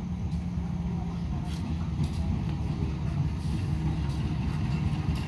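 A train's diesel engine running, a steady low rumble with a held drone.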